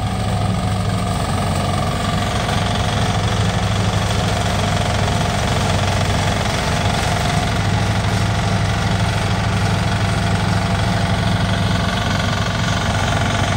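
The small engines of a mini tractor and its towed grass chopper run steadily while the chopper cuts standing grass and blows the cuttings into a mesh cage trailer.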